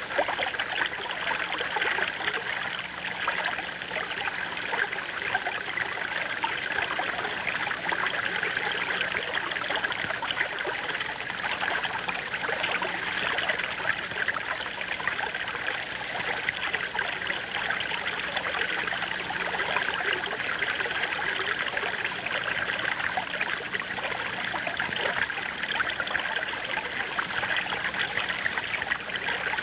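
Steady rushing and trickling of river water.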